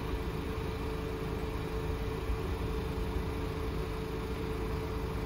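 Volkswagen-group car's engine idling steadily: an even hum with a constant mid-pitched tone over a low rumble.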